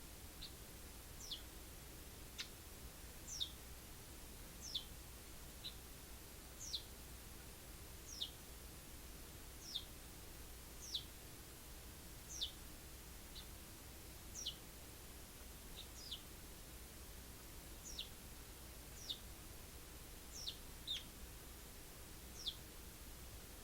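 Pet Eurasian tree sparrow calling with single short chirps, each a quick high cheep falling in pitch, about one every second and a half, over a faint steady hiss.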